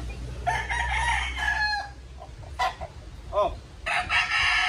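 Gamecocks crowing: one long crow about half a second in, a couple of short calls, then a second long crow starting near the end.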